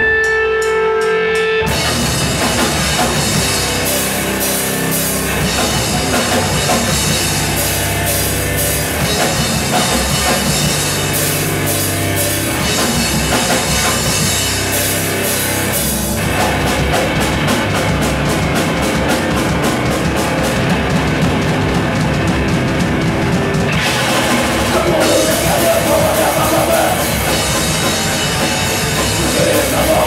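Live rock band playing loud with electric guitar, bass and drum kit. A held note opens, then the whole band comes in just under two seconds in and plays a heavy, driving rock part.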